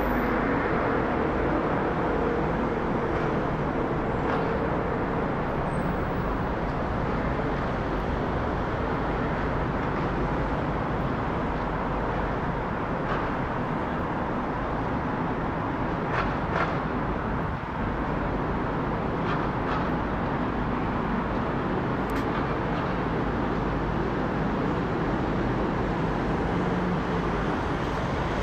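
Boeing 787-9 airliner's jet engines, a steady broad roar as the aircraft comes in and passes almost overhead.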